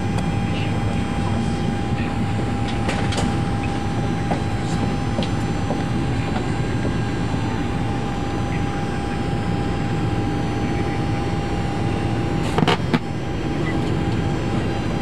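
Steady cockpit noise of an Airbus A340 on the ground: a low rumble with a thin steady high hum through it, and a brief knock near the end.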